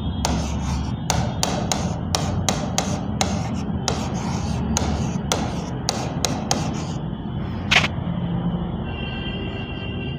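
Pen tapping and scraping on the glass of an interactive smart board as words are handwritten: a quick irregular run of sharp taps, then one louder click near the end, over a low steady hum.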